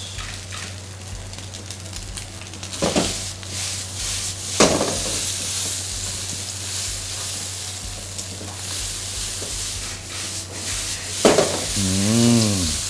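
Red rice and kale stir-frying in a hot wok: a steady sizzle, with the ladle scraping and tossing the rice and knocking against the pan a few times.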